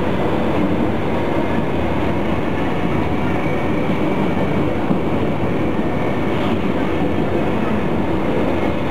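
AnsaldoBreda electric metro train running, heard from inside the passenger car: a steady loud rumble of wheels on rail with a faint steady whine over it.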